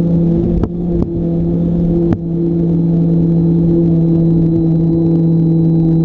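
Radio-controlled plane's motor and propeller running at a steady hum, heard on board, with three brief dips in sound about half a second, one second and two seconds in.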